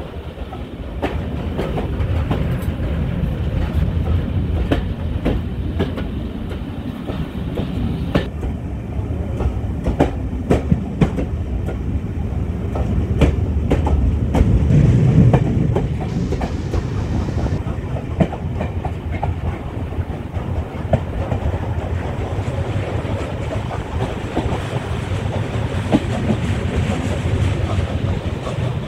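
Heritage railway passenger carriage running along the track, heard at an open window: a steady low rumble of wheels on rail with irregular clickety-clack clicks as the wheels pass over rail joints.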